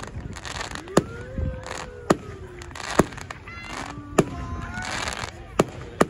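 Fireworks display: five sharp bangs of shells bursting, roughly a second apart, with crackling and fizzing between them and a few sliding tones over the top.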